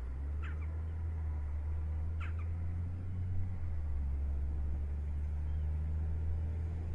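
A steady low rumble, with two short high calls from a bird that drop in pitch, about half a second in and again a little after two seconds.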